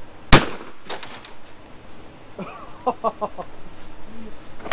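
A single shot from a Hawk 982 12-gauge pump shotgun about a third of a second in. Birds call a few times about two and a half seconds later.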